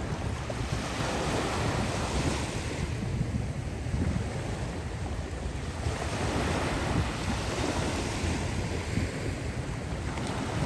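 Calm ocean waves breaking and washing on the shore in slow swells, with wind buffeting the microphone as a low rumble.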